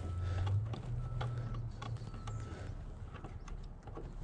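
Scattered light clicks and clinks of hand tools working on a truck's engine bay, over a low hum that fades out about two and a half seconds in.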